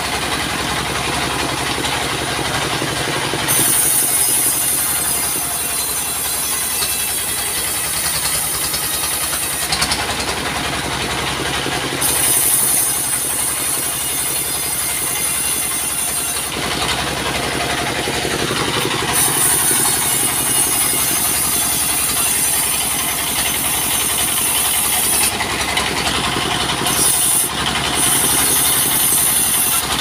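Diesel-driven portable bandsaw sawmill running steadily while its blade saws a log into planks, a high hissing whine coming and going several times as the blade cuts through the wood.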